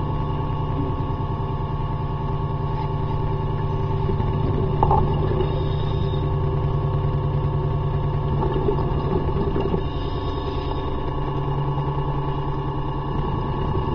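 Boat propeller and motor droning steadily, heard underwater, with several steady tones. There is a brief knock about five seconds in, and the low tone shifts slightly about ten seconds in.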